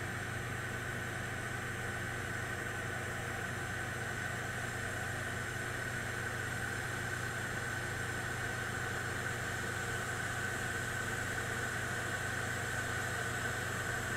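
Electric kettle heating water that is still well short of the boil, giving a steady hiss and hum that grows slightly louder.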